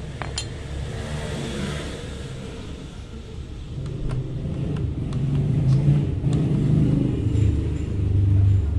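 A motor vehicle engine running, a low sound that grows louder about four seconds in, with a few light clicks of metal brake parts being handled.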